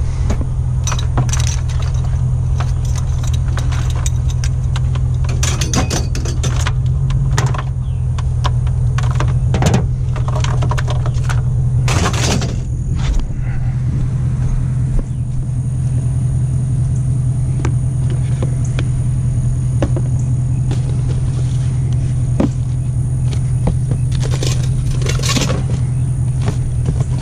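Pickup truck engine running steadily, with scattered clanks, rattles and scrapes of scrap items being moved and loaded; the loudest scrapes come about six and twelve seconds in and near the end.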